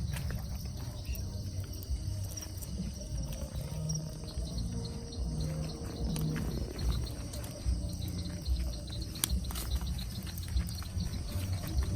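Crickets chirping in a steady high trill, over a low rumble.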